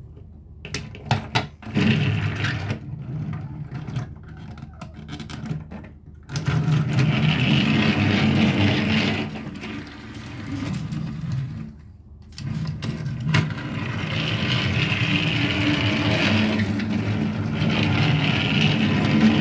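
Small electric motor of a battery-powered toy train whirring, in two long runs, with plastic clicks and knocks in the first couple of seconds.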